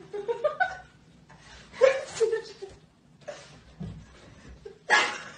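A person laughing in short bursts: a quick run of laughs rising in pitch near the start, a louder burst about two seconds in and another near the end.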